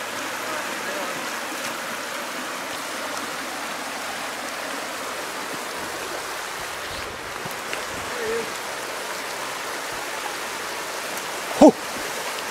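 Steady rush of water through a shallow rocky riffle in a mountain river. Near the end a man gives one short, loud shout of "Oh" as he hooks a fish.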